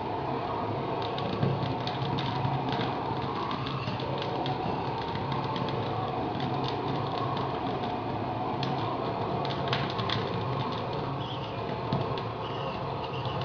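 A gas burner's flame rushing steadily inside an oak whisky barrel as it re-chars the interior, with the burning wood crackling and popping throughout, thickest a second or two in and again around ten seconds in.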